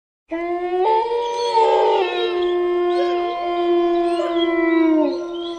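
Eerie howling wail used as a ghost sound effect: a long held note that starts suddenly, with higher wavering, gliding cries over it, the held note sliding down near the end.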